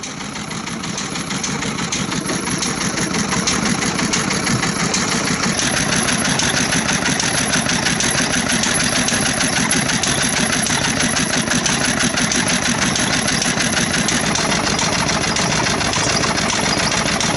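Old Kyowa-type medium-speed single-cylinder stationary farm engine running steadily after start-up, with a rapid, even firing beat.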